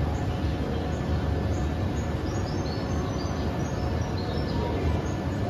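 Steady low rumble and hum of an aquarium hall, with faint short high chirps scattered through it.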